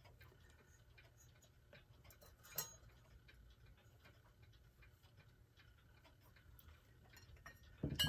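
Faint light ticking and small clicks, with a sharper click about two and a half seconds in and a louder knock near the end.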